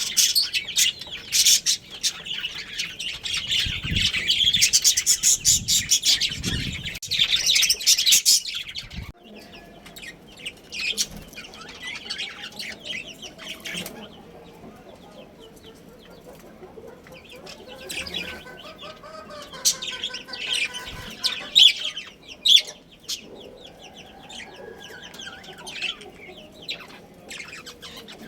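Budgerigars chirping and chattering: a dense run of rapid high chirps for about the first nine seconds, with a couple of low thumps, then scattered chirps and some lower warbling calls.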